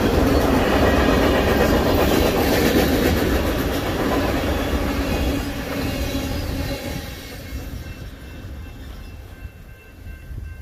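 Freight train tank cars rolling past a grade crossing, a loud steady rumble that fades out about two-thirds of the way in as the last car goes by. A crossing bell then rings on with steady tones over the quiet.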